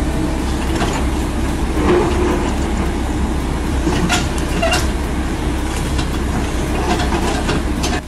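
Hydraulic excavator running steadily while its bucket digs out a tree stump, with several sharp cracks and knocks as the bucket tears at the stump and roots.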